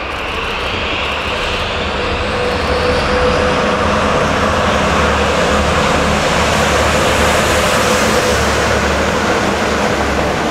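JR DD51 twin-engine diesel-hydraulic locomotive passing close by under power, hauling an unpowered EF66 electric locomotive. The engines grow louder over the first three seconds as it approaches, then run loud and steady with a steady hum as it goes past.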